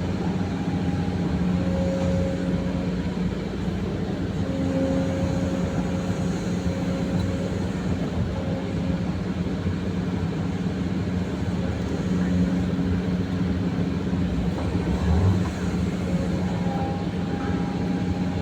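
Excavator's diesel engine running steadily: a constant low drone with small swells in level.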